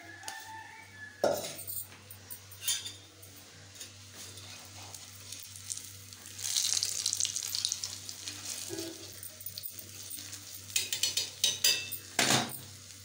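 Food sizzling in hot oil in a black iron wok while metal tongs turn the pieces, clinking and scraping against the pan. The sizzle swells about six seconds in, and there is a run of clatter near the end.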